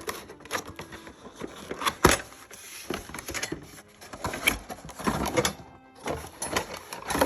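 Cardboard box being opened and its packaging handled: irregular rustles, scrapes and knocks, the sharpest about two seconds in.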